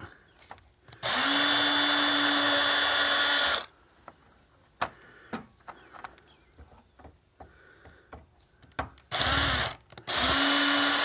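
Handheld power drill-driver running at a steady pitch, backing screws out of the router's boards. It runs for about two and a half seconds starting about a second in, then gives a short burst and a second run near the end, with small handling clicks in between.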